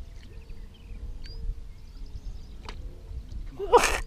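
Lakeside outdoor ambience: a steady low rumble of wind on the microphone with faint, scattered bird chirps. Near the end comes a brief, loud vocal exclamation.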